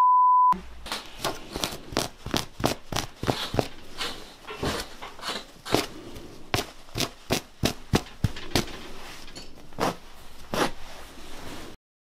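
A half-second bleep tone, then a yellow safety cutter slicing through a mattress's pillow-top fabric and padding: repeated short, sharp cutting and ripping strokes, uneven, about two to three a second.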